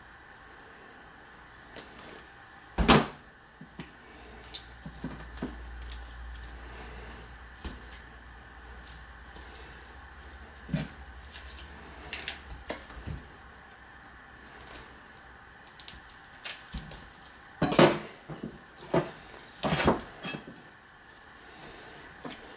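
Scattered knocks and clinks on a stainless steel draining board as a rabbit carcass and a kitchen knife are handled on it during skinning. The loudest knock comes about three seconds in, with two more clusters of clatter near the end.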